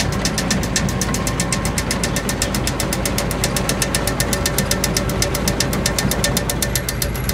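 Farm machinery running steadily: a low hum under an even, rapid knocking of about nine beats a second that does not change.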